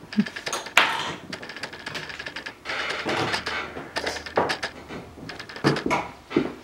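Irregular clicks, knocks and clatter of tools and objects being handled at a workbench, with a short rushing burst about a second in.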